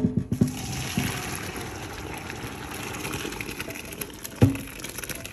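Hot pasta water and cooked macaroni poured from a pot into a stainless steel colander in the sink, the water rushing through the holes. A few sharp knocks come at the start and one more about four and a half seconds in.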